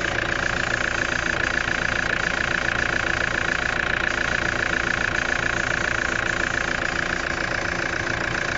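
Car engine idling, with a steady high-pitched noise over it: the extraneous sound that the owner hears around the brake master cylinder, on a car that is losing brake fluid.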